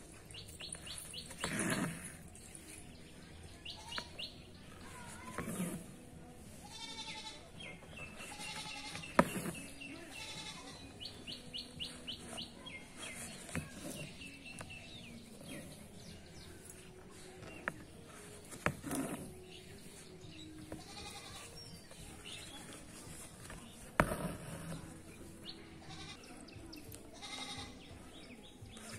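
Animal calls in the background every few seconds, each a pitched call with a rapid pulsing quiver, and two sharp knocks, one about nine seconds in and one later on.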